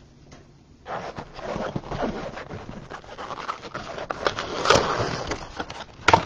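Trading-card blaster box packaging being torn open by hand: a few seconds of steady crinkling, scraping and rustling of plastic wrap and cardboard, ending in a sharp snap.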